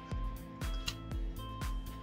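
Background music with a steady beat: a low drum thump about twice a second under sustained held notes.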